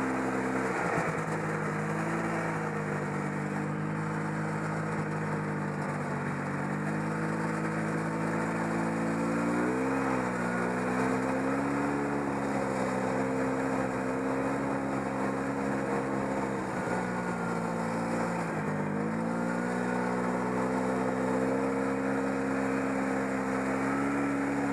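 Yamaha Bravo BR250 snowmobile's two-stroke engine running at a steady trail speed, heard from on board. The engine note drops and comes back up twice, about ten seconds in and again near the nineteen-second mark, as the throttle is eased and reopened. Track and wind noise run underneath.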